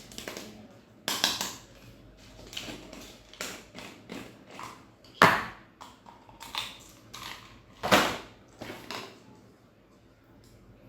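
Stationery and its packaging being handled during unboxing: a string of irregular rustles, clicks and knocks, the sharpest about five and eight seconds in.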